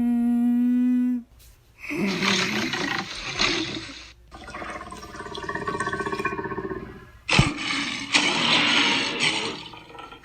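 Designed monster vocal sound effects for the kaiju Titanus BioAcid. A steady droning tone cuts off about a second in. Three long, harsh roars follow with short gaps between them, the last opening with a sharp crack.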